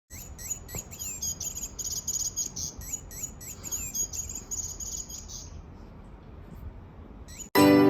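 Electronic bird-sound cat toy chirping: a quick run of short, high, realistic bird chirps that thins out and stops about five seconds in.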